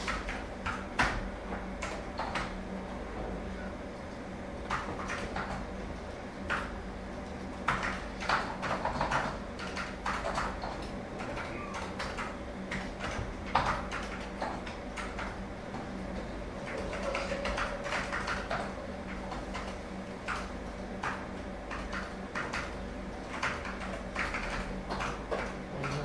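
General indoor school atmosphere: irregular knocks, bangs and door sounds with indistinct voices here and there, over a steady low hum.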